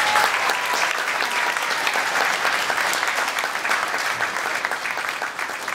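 Audience applauding: many hands clapping in a dense, even clatter that slowly dies down.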